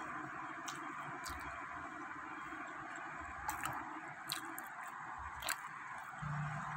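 Paper and foil food wrapping being handled, with a few short sharp crinkles over a steady background hiss.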